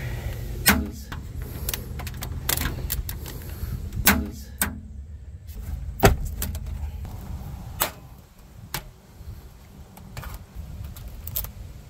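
Diagonal side cutters snipping through a plastic tie on the sunroof wiring, followed by scattered sharp clicks and rattles as the loosened sunroof frame, cables and clips are handled.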